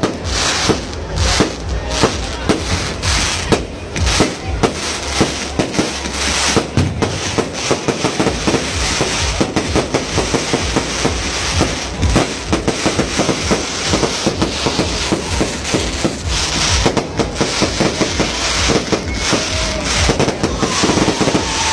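Fireworks going off in a dense, continuous barrage of rapid overlapping bangs and crackles.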